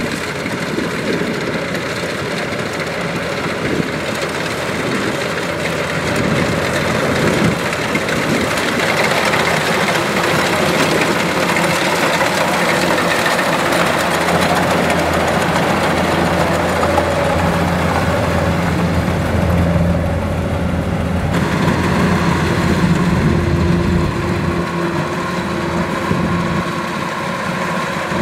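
Kubota DC-105X rice combine harvester at work in standing rice: its diesel engine running steadily under load, with the noise of the cutting header and threshing machinery. The sound shifts abruptly about three quarters of the way through.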